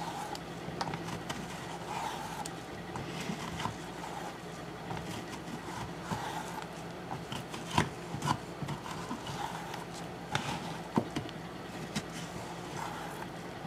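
Metal ice cream scoop scraping the pore layer off a large dryad's saddle mushroom on a plastic cutting board: irregular scraping with a few sharp clicks, over a faint low hum.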